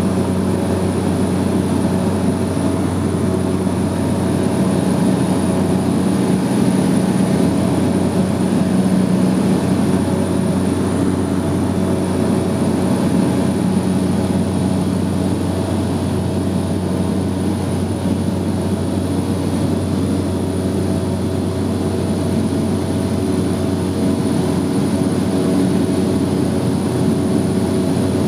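Steady drone of a light propeller aircraft's engine and propeller, heard from inside the cabin in flight. The pitch holds even throughout.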